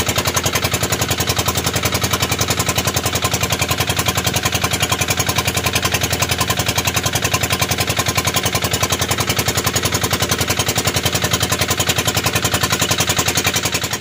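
Engine of a motorized outrigger boat (bangka) running steadily under way, a loud rapid popping beat that never changes speed.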